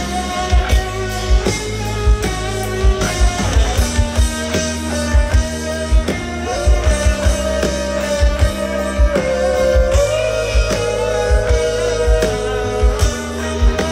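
Live rock band playing an instrumental passage through a large outdoor PA, heard from within the crowd. Held lead notes run over bass and a steady kick-drum beat, and one long note slides down in pitch past the middle.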